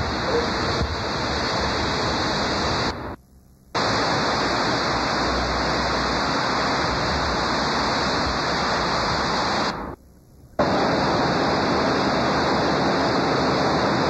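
Steady, fairly loud hiss of static-like noise with no distinct events, dropping out almost completely twice for under a second, about three seconds in and again about ten seconds in.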